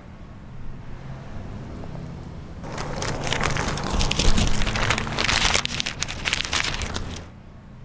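Paper flyers being ripped off a utility pole and crumpled by hand: a dense, crackling tearing and crinkling that starts about three seconds in, lasts around four seconds and stops abruptly.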